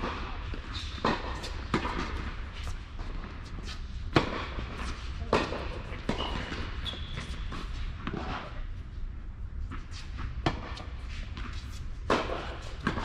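Tennis balls struck by racquets during a doubles rally on an indoor court: sharp pops at irregular intervals of a second or two, each with a short echo from the hall, over a steady low hum.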